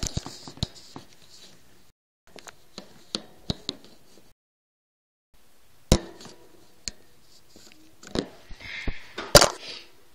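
Handling noise against a plastic hamster cage: scattered light clicks and knocks, a sharp knock about six seconds in, and a short rustle with a loud click near the end. The sound drops out entirely for about a second in the middle.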